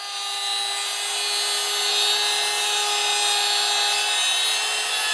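Small handheld router running steadily with a high whine as it cuts into wood; the sound builds over the first second and then holds.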